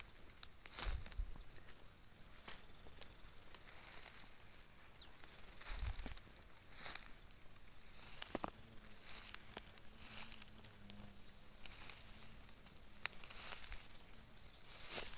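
Insects chirring in a steady high-pitched drone, swelling louder for a second or so every few seconds. A few soft thumps and rustles in the grass come through now and then.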